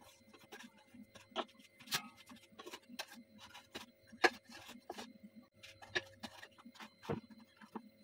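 Irregular light clicks and taps of pizza slices and a cardboard pizza box being handled, over a faint steady hum.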